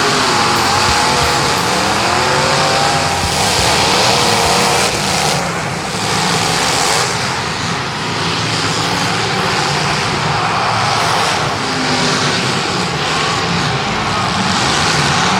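Several demolition derby cars' engines running hard on the track, revving up and down.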